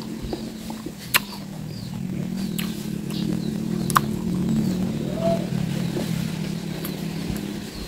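A metal spoon clinks against a glass bowl a few times, sharpest about four seconds in. A steady low motor hum runs underneath.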